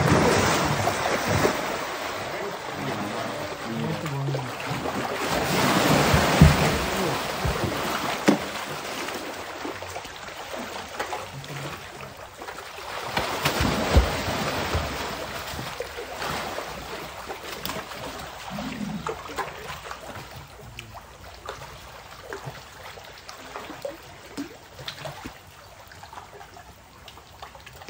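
Large crocodile lunging up out of a pond and thrashing, throwing heavy splashes that start suddenly and swell twice, about six and fourteen seconds in, then water sloshing and lapping as the pond settles.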